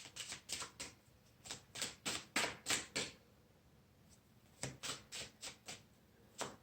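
Tarot cards being shuffled by hand: clusters of crisp card flicks and slaps, with a pause of about a second and a half midway.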